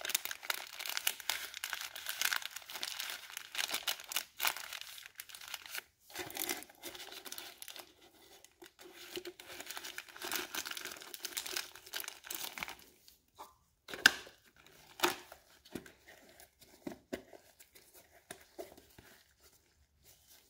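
Paper form and plastic bag crinkling and rustling in nitrile-gloved hands while an oil-sample bottle is packed into its plastic mailing container. The crinkling is dense for most of the first part, then thins out to scattered rustles with a couple of sharp clicks past the middle as the container is handled and capped.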